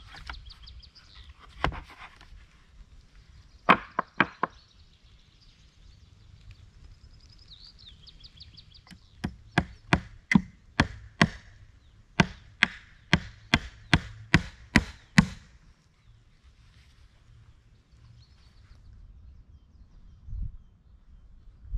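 Hammer nailing a wooden crosspiece onto planks: a few separate blows in the first seconds, then a quick run of about a dozen strikes, roughly two a second, from about nine to fifteen seconds in.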